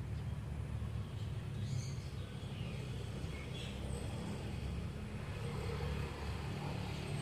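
Steady low rumble with a few faint, short bird chirps a couple of seconds in.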